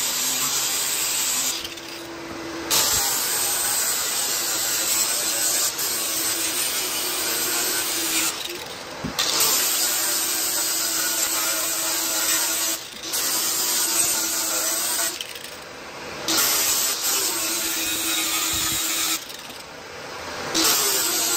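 Grinder with a sanding pad grinding down old boat fiberglass, feathering it to a taper for new fiberglass: a steady hiss of abrasive over a motor tone. The grinding eases off briefly four or five times and then picks up again.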